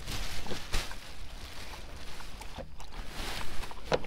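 Plastic trash bag crinkling and rustling in irregular bursts as hands rummage through the clothes inside it.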